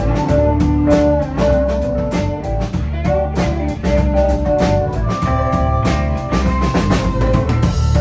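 Live rock band playing: drum kit keeping a steady beat under electric guitar and keyboard, with harmonica played over the top. Long held high notes come in from about five seconds.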